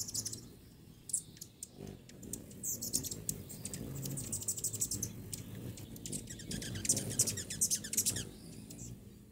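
Small birds chirping in quick, high chittering bursts, loudest about three seconds in and again near the end, over a low steady background rumble.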